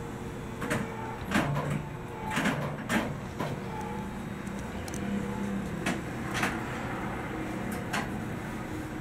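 Irregular knocks and clunks, about eight of them, over a steady hum aboard an electric train.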